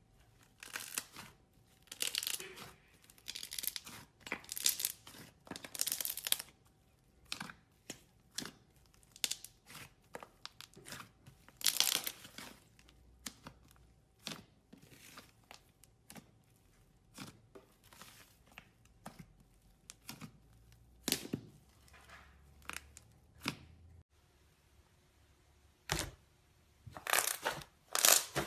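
Hands squishing, pressing and pulling apart butter slime made with plasticine, giving a run of irregular short squelching sounds, some drawn out over about a second.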